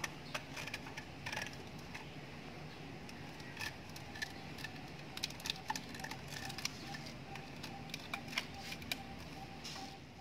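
Scattered small clicks and crackles as gloved hands handle corrugated plastic conduit over gate-motor wiring.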